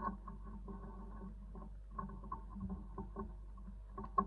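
Lock-picking tools being worked into a Chubb 7-lever lock, making small irregular metallic clicks and scratches, with one sharper click near the end.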